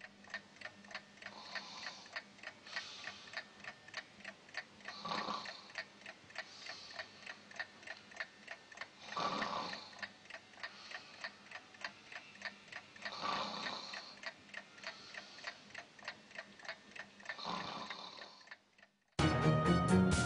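Mechanical alarm clock ticking steadily, with a sleeper's slow breaths swelling every few seconds. Near the end the ticking stops and loud music starts.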